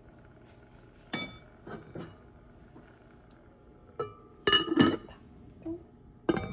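Heavy enamelled cast-iron lid of a Le Creuset pot being set on the pot, clinking and ringing against the rim several times, loudest about four and a half seconds in, with another clink near the end. A single sharp knock about a second in.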